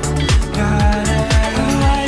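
Background pop dance music with a steady beat and deep bass hits.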